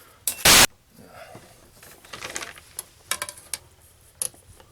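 Handling noise while taking a measurement: one very loud, short rushing burst about half a second in, then scattered sharp clicks and small rattles.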